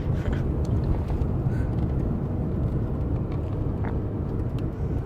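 Steady road and engine rumble heard inside the cabin of a moving car, with a few faint clicks.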